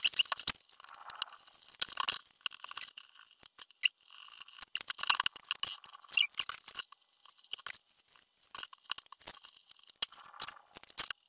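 Irregular small clicks, taps and rustles of hands working on an RC buggy chassis at a workbench, picking up and setting down small metal hand tools and plastic parts.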